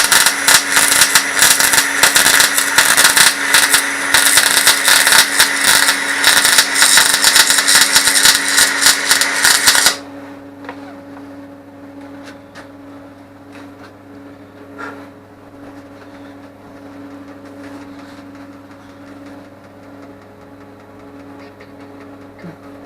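Welding on the steel tractor door hinge: a loud, dense crackle that starts just before and cuts off abruptly about ten seconds in, followed by a low steady hum and a few small clicks.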